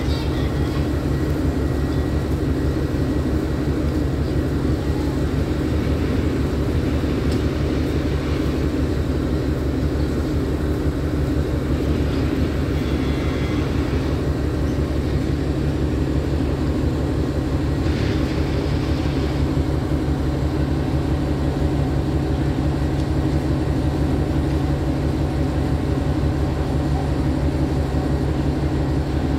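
Alsthom diesel-electric locomotive idling at a standstill: a steady low engine drone with a deep hum.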